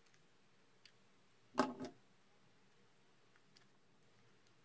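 Handling noise from the small plastic and metal parts of a butane soldering iron: a few faint ticks, and one louder short double clack about a second and a half in.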